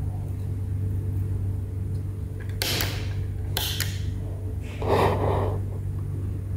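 A steady low electrical hum, with two short rustling handling noises about two and a half and three and a half seconds in, and a brief breathy noise around five seconds, the loudest sound.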